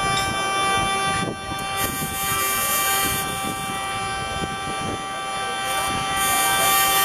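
Hurdy-gurdy droning as its wheel is cranked: several steady held tones sounding together, with a brief dip about a second in.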